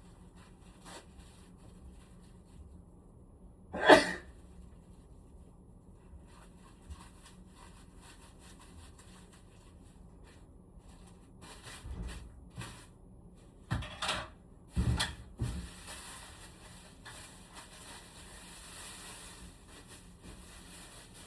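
Handling noises from a room air conditioner being taken apart for cleaning: one sharp clack about four seconds in, then a run of knocks and rubbing some eight seconds later, followed by a faint hiss.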